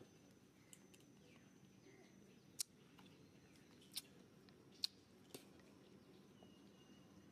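Faint background with a thin, steady high tone, broken by four or five short, sharp clicks spread over a few seconds.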